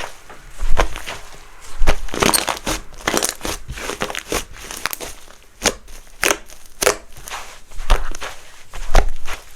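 Soft clay slime being pressed and kneaded by hand, giving irregular small pops, crackles and squishes several times a second.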